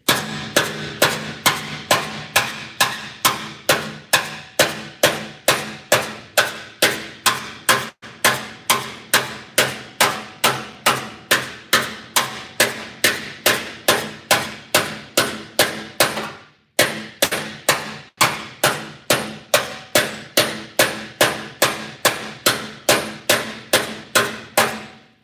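Spoon hammer striking a thick steel aftermarket Volkswagen Beetle fender in steady hit-and-drag blows, about three a second, each blow ringing briefly, with no dolly behind the panel. There is a short break about two-thirds through. The blows knock down a high spot to pop out the low spot beside it.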